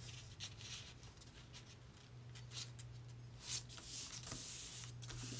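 Hands rubbing and smoothing a freshly glued sheet of paper flat on a journal page: a few faint, soft brushing strokes of skin and paper. A steady low electrical hum runs underneath.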